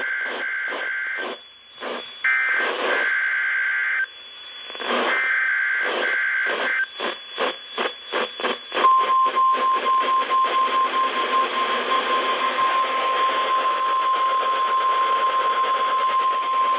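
NOAA Weather Radio signal received on a weather radio. It plays three harsh bursts of SAME digital header data, then, about nine seconds in, the steady 1050 Hz warning alarm tone begins. Crackling, pulsing static from weak reception runs under both.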